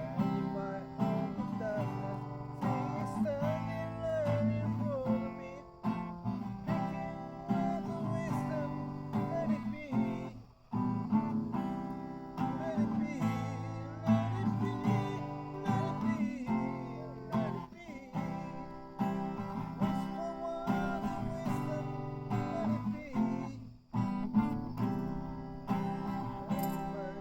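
Acoustic guitar strummed and picked in a steady run of chords, with two short breaks: about ten seconds in and near the end.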